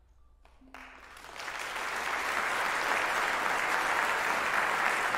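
Audience applause breaking out about a second in after a brief hush and quickly swelling to steady, full clapping.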